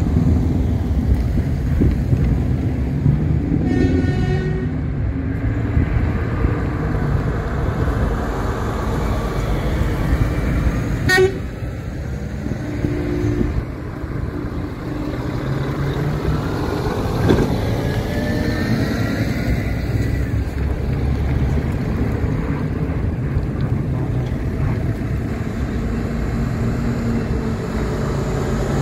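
Heavy trucks' diesel engines running as the lorries pull out one after another, the engine note rising as one accelerates away. There are a couple of short horn toots, the clearest about four seconds in.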